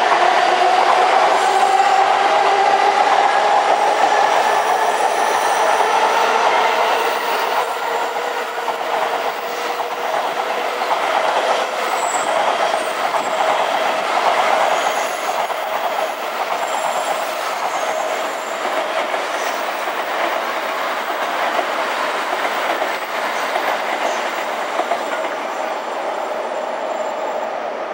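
Electric trains running past close by. Over the first few seconds a motor whine rises in pitch as a train picks up speed. After that comes a steady running noise of wheels on rails, which eases a little after about eight seconds.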